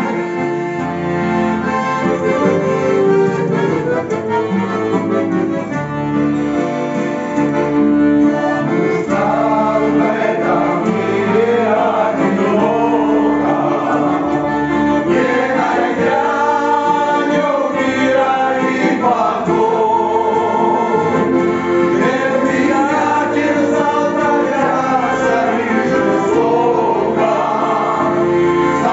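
A button accordion (bayan) and an acoustic guitar playing, with a group of men's voices singing along from about nine seconds in.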